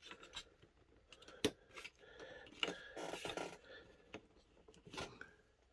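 Hard plastic parts of a laptop cooling stand clicking, rattling and scraping as hands try to work a detachable piece off the frame, with a few sharper clicks along the way.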